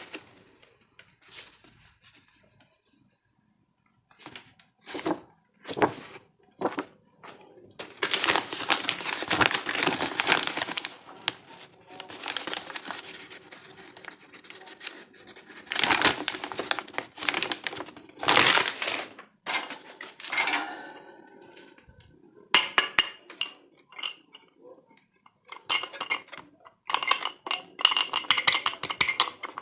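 Unboxing handling: packaging crinkling and tearing, with fan parts knocking and clinking. It comes in irregular bursts, with a quiet pause near the start.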